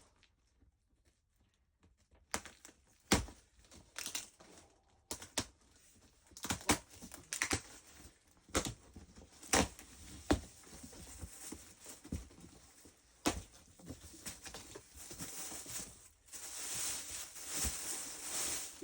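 Packaging being handled while a shipping box is unpacked: irregular crinkling and tearing with scattered sharp knocks, turning into a denser, steadier rustle near the end.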